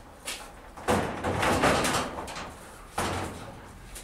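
Metal up-and-over garage door being pushed, knocking and rattling: a sharp knock, then a longer scraping rattle for about a second, then another knock near the end.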